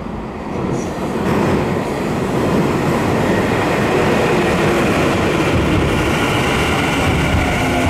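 Tokyu 5000 series electric train with Hitachi IGBT-VVVF control and open 4-pole induction motors running into the station: rumble and wheel noise builds over the first two seconds. From about three seconds in, the whine of the inverter and traction motors rises above it as the train brakes.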